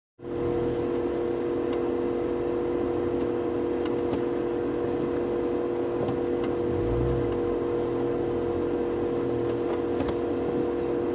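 Moskvich car engine running at steady, unchanging revs, a constant hum with a low rumble underneath.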